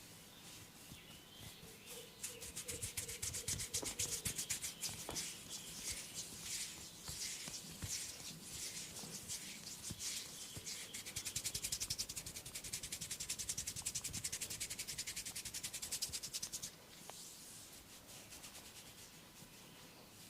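Hands rubbing and scratching quickly over hair and skin in a massage, a rapid run of scratchy strokes that stops suddenly near the end.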